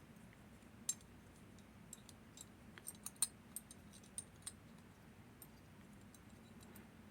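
Faint, scattered small metallic clicks and ticks from the levers and parts of a disassembled lever lock being handled, the sharpest about a second in and about three seconds in, over a faint steady hum.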